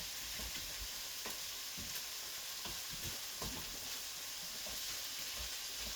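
Diced bacon, garlic and soffritto sizzling steadily in olive oil in a frying pan, with scattered soft knocks.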